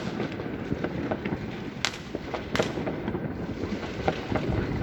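New Year fireworks and firecrackers going off all around: a steady patter of distant cracks and pops, with two louder bangs about two and two and a half seconds in.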